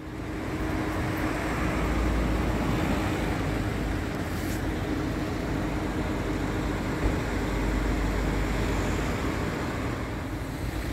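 Car driving slowly: steady engine and road noise heard from inside the cabin, rising sharply in the first second.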